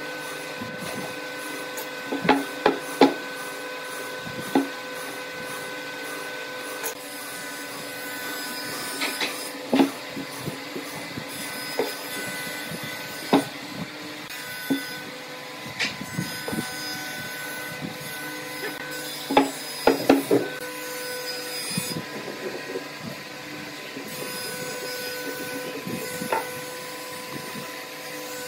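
Pine beams and hand tools being handled on a wooden workbench: scattered sharp wooden knocks and taps, some in quick pairs, with pencil scratching as lines are marked on the timber. A steady hum runs underneath.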